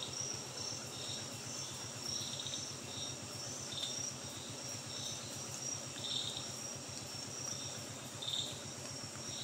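Forest insects calling: a steady high trill with short pulsed chirps repeating every half second or so, over a low steady hum.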